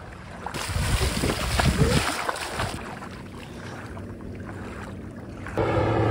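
Shallow seawater splashing for about two seconds as a child wades and runs through it. Near the end the steady drone of a small propeller plane's engine starts suddenly and becomes the loudest sound.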